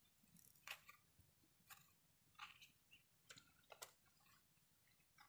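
Faint knife clicks and scrapes against young coconut shell and flesh as the coconut is cut into small pieces, about one stroke a second.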